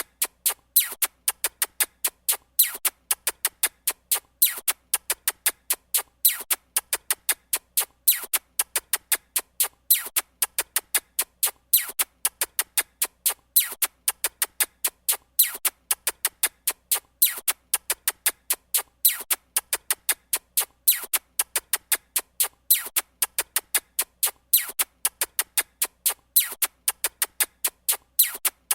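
Stock sound effect of rapid, sharp clicks in a looped rhythmic pattern that repeats about every two seconds.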